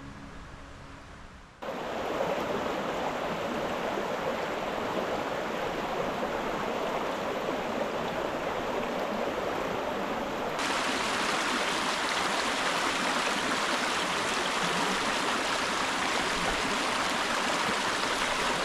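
Mountain creek water flowing, a steady rush that cuts in suddenly about a second and a half in. About ten seconds in it switches to a brighter, hissier rush.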